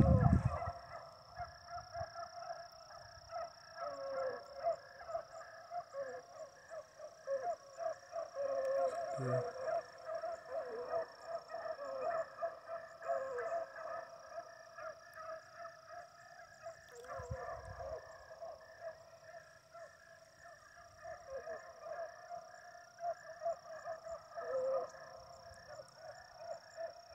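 A pack of beagles baying continuously, many overlapping calls, as the hounds run a rabbit's scent trail. A steady high-pitched whine runs throughout, and there is a brief low rumble at the start.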